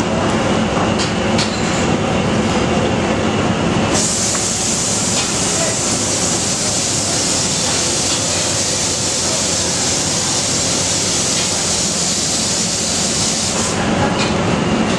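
Steady loud roar of a busy commercial kitchen with a low hum underneath; the hiss turns brighter from about four seconds in until near the end.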